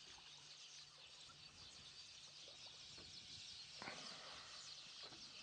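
Near silence: faint outdoor ambience with small birds chirping softly in the distance, and a soft slosh of water as an elephant sweeps its trunk through the water about four seconds in.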